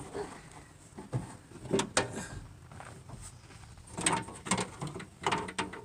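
Irregular clicks and knocks of hands working on a van's door latch mechanism and its cables, a few single knocks early and a quicker run of clicks from about four seconds in.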